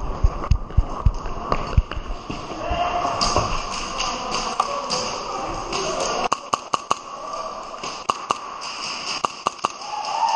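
A quick run of low thumps in the first couple of seconds, then about a dozen sharp clicks at irregular spacing through the second half, over a steady background hubbub.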